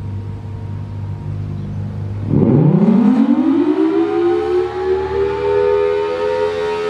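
Federal Signal Thunderbolt 1000T outdoor warning siren winding up on the alert signal. A low hum comes first; about two seconds in, the pitch sweeps quickly upward and then levels off into a loud, steady wail of two close tones.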